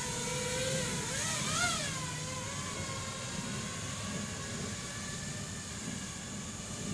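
Brushless motors and three-blade propellers of a 5-inch FPV quadcopter whining in flight, the pitch swelling up and down quickly a few times in the first two seconds as the throttle changes, then holding fairly steady.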